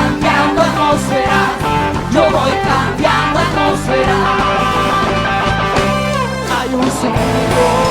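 Worship band music with guitar and drums playing an instrumental passage, with a drum beat about once a second and a falling sweep about six seconds in.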